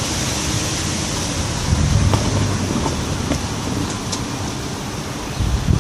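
Steady outdoor background noise: a hiss over a low rumble, swelling briefly about two seconds in, with a few faint ticks.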